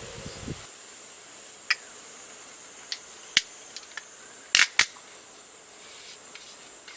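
A series of sharp, irregular clicks and snaps, the loudest a close pair about halfway through, over a steady high-pitched tone.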